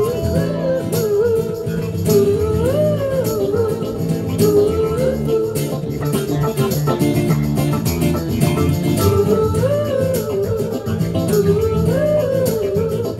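Live band playing: electric guitar and a Nord Electro 2 keyboard, under a lead melody that bends up and down, with a steady rattling percussion beat.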